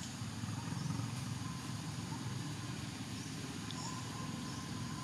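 A steady low rumble with a hiss over it, and a faint thin tone that comes and goes in the middle and later part; no distinct sound event stands out.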